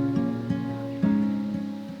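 Background music: plucked acoustic guitar notes ringing and fading out near the end.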